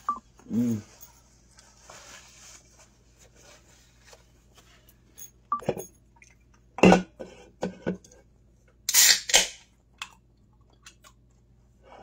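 Scattered kitchen handling sounds: a few sharp knocks and clinks around the middle, followed by a short burst of rustling.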